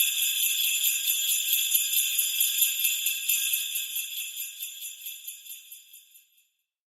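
Jingle bells shaken steadily with a bright, high ringing shimmer, fading out over the last few seconds and stopping about six seconds in.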